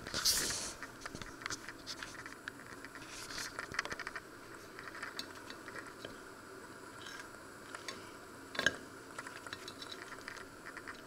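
Light scratching and rustling from a piece of crusty home-baked bread being handled and turned over a china plate, with small clicks and one sharper knock about two-thirds of the way through.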